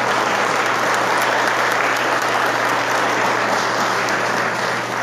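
A small group of people clapping their hands in steady applause, over a low steady hum.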